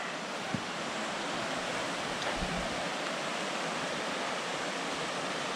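Steady rushing of water, an even hiss that holds without change, with one small click about half a second in.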